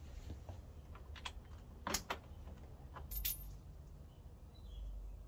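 Small metal hardware and hand tools clinking as they are handled, a few separate sharp clinks with the loudest pair about two seconds in.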